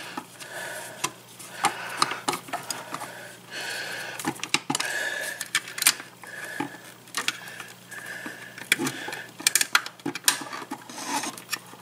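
A screwdriver working the metal terminal screws of a GFCI receptacle to free the ground wire, with the plastic receptacle being handled: irregular clicks and ticks, and short stretches of scraping.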